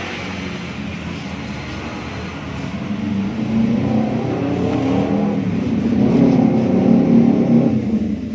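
A motor running with a steady low pitched hum that grows louder from about three seconds in, then drops away sharply at the end.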